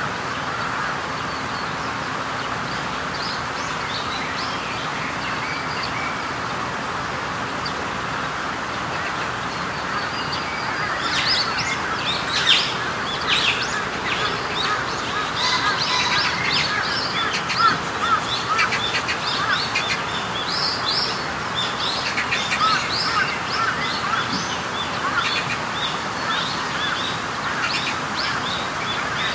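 Many small birds chirping and calling over a steady background hiss. The chirping grows much busier about eleven seconds in.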